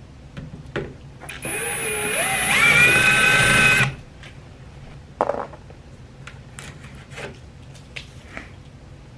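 Cordless power drill running in one burst of about two and a half seconds, its motor pitch rising as it spins up and then holding steady. A few light clicks and knocks follow.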